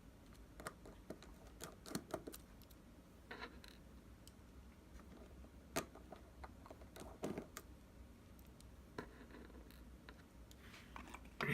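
Scattered light clicks and scratches of a small screwdriver and tools working on the tiny internal screws and metal parts of an iPhone 5s as the screws are taken out.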